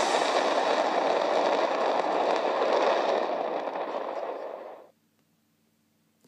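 A fireworks display: a dense, continuous wash of crackling bursts heard from a distance. It thins out over the last couple of seconds and cuts off abruptly about five seconds in.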